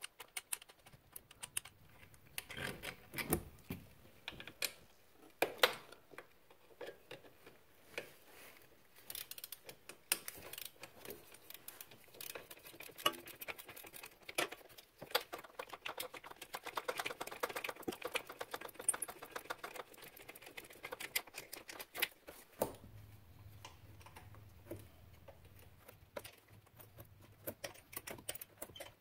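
Irregular light clicks and small taps of a hand tool and gloved hands working on the carburetor and its fittings on a Honda TRX90 ATV. A faint low hum joins in for the last quarter.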